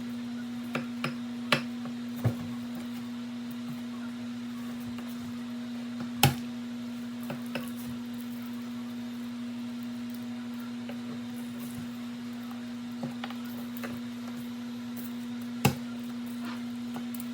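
Sharp knocks on a cutting board as garlic cloves are smashed and peeled: a few in the first couple of seconds, one about six seconds in and another near the end. A steady low hum runs underneath.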